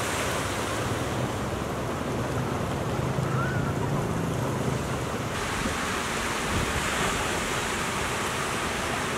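Ocean surf breaking and washing, a steady rush of water noise, with wind on the microphone. The sound changes character about five seconds in.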